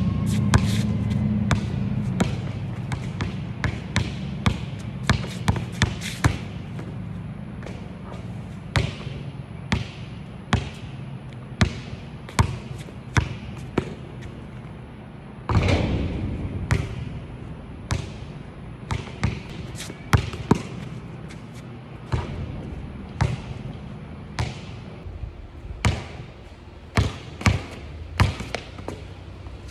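Basketball dribbled on a concrete court: sharp bounces at an irregular pace, sometimes in quick runs, with a low steady rumble underneath.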